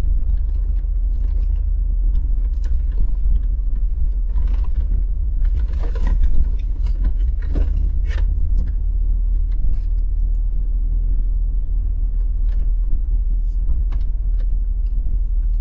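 Vehicle crawling over a rough, rocky dirt track: a steady low rumble of engine and road, with scattered knocks and rattles as it jolts over rocks, the strongest about six to eight seconds in.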